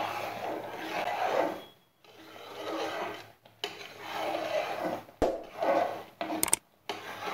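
Steel spoon scraping and stirring thick, sticky wheat halwa around a pressure-cooker pot in long strokes with short pauses, as the mixture cooks down to a thick consistency. A sharp click about five seconds in.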